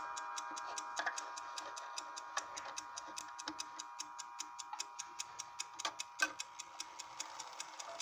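Schatz triple-chime mantel clock: the brass chime rods ring on and fade, while the jewelled balance-wheel escapement ticks quickly and evenly, about five ticks a second. A few louder clicks come through the ticking.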